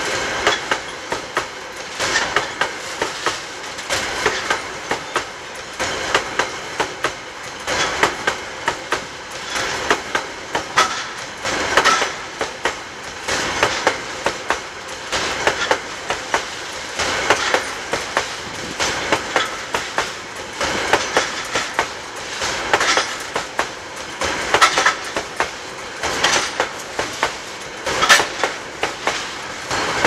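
Loaded coal hopper cars of a freight train rolling past close by, their wheels clattering over the rail joints in a clickety-clack: repeated clusters of sharp knocks every second or two over a steady rumble.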